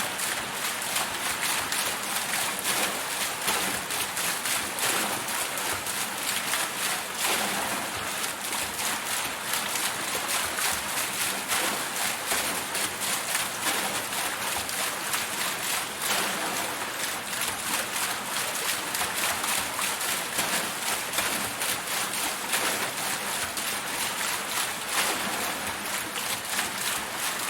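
Water wheel turning, with water steadily splashing and pouring off its paddles in a dense, even rush.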